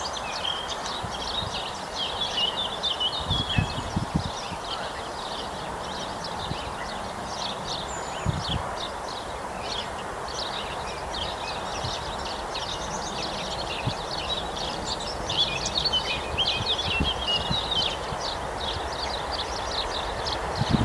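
Many birds chirping and singing over a steady background hiss, with a few brief low thumps.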